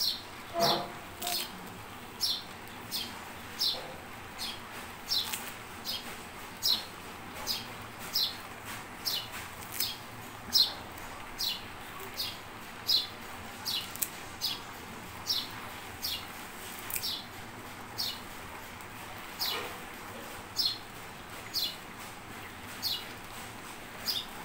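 A small bird chirping over and over, one short, high, falling chirp about every three-quarters of a second.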